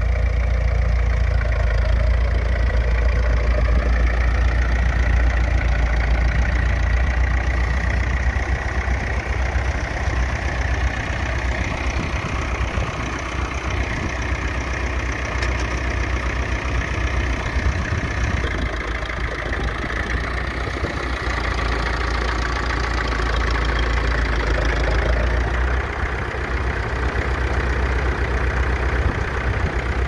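McCormick International B275 tractor's four-cylinder diesel engine running steadily under load as it pulls a mounted plough.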